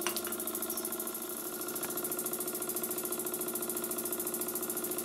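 Burnac Vulcan vertical toy steam engine running steadily under steam with a rapid, even beat.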